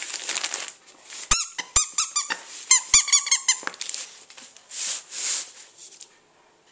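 A squeaky plush dog toy squeaking in a quick run of short, high squeaks over about two seconds as a small dog bites at it. Wrapping paper rustles briefly near the start and again about five seconds in.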